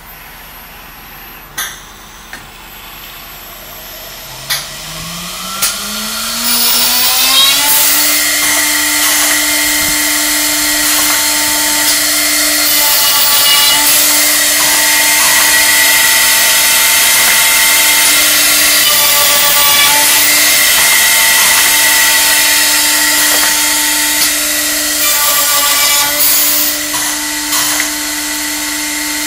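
High-speed router motor of a CSR-300 CNC handrail drill spinning up with a rising whine about four seconds in, after a few sharp clicks, then running steadily as its plunging bit bores a series of baluster holes in a wooden handrail, the sound dipping briefly between holes.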